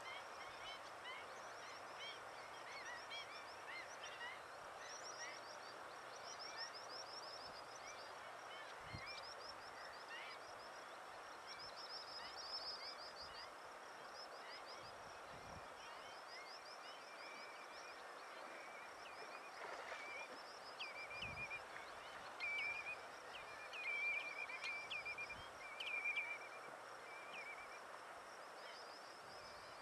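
Birds calling at a lagoon: a continual run of high, rapidly repeated chirps over a soft outdoor hiss, with louder sharp calls in clusters about two-thirds of the way through.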